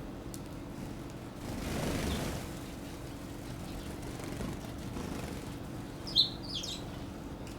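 Two short, sharp chirps from a Eurasian tree sparrow about six seconds in, over a steady low background hum. A soft whoosh comes about two seconds in.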